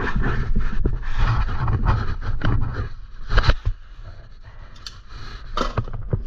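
Scraping and handling noise of bicycle parts being worked on by hand, with a few sharp knocks, over a low rumble.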